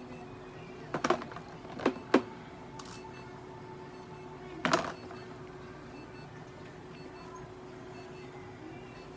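A cat being brushed on a steel exam table: a few short knocks and a brief scrape from the brush and handling, about a second in, twice more soon after, and once mid-way, over a steady electrical hum from clinic equipment.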